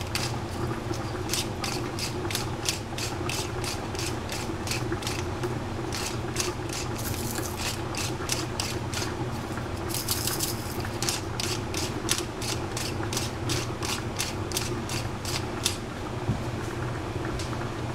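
Doll-shaped hand-twisted spice mill being ground, its mechanism clicking evenly about three times a second; the clicking stops about two seconds before the end.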